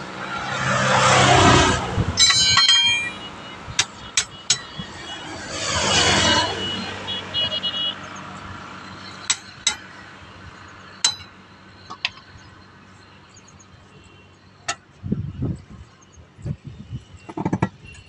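Steel tyre levers clinking and tapping against a truck wheel's steel rim as the tyre bead is levered by hand, in separate sharp clinks with a brief metallic jangle about three seconds in. Two passing vehicles swell and fade, about a second in and again around six seconds, the loudest sounds here.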